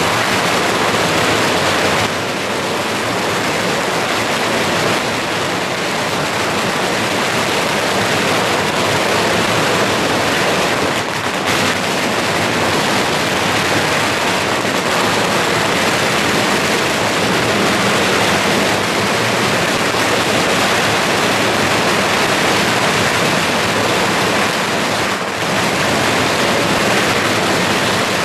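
Dense firecracker barrage: long strings of firecrackers going off together in a continuous, unbroken crackle.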